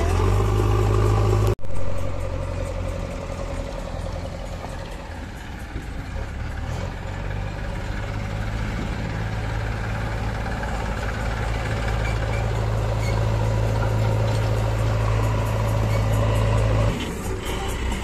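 Diesel engines of a JCB 3DX backhoe loader and a farm tractor running steadily with a strong low drone. There is a brief dropout about one and a half seconds in, and the drone drops in level near the end.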